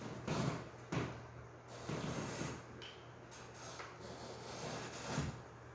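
A few short, soft knocks and scrapes of objects being handled, spread over several seconds, over a steady low hum.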